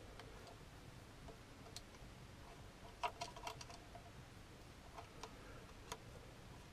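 Faint metallic clicks of a small socket wrench and bolts being worked out of a motorcycle's front sprocket cover. Single ticks are scattered through, with a quick run of about five clicks about three seconds in.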